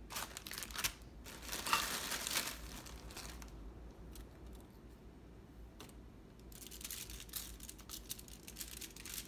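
Plastic pepperoni packet crinkling as slices are taken out of it, in two bursts over the first couple of seconds, then more crinkling with light taps near the end.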